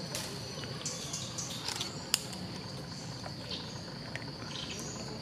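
Insects trilling steadily at a high pitch, with scattered small clicks and one sharp click about two seconds in.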